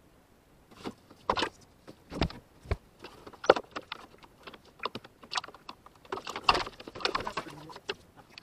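A string of irregular clicks, knocks and light rattles as a shop-vac hose is pulled into the pickup cab; the vacuum itself is not running.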